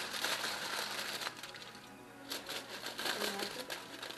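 Aluminum foil crinkling and crumpling as it is rolled and crimped by hand, in spells with a short lull about two seconds in.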